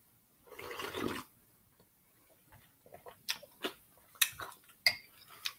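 A person slurping from a bowl, followed by a scattering of small wet mouth clicks and smacks.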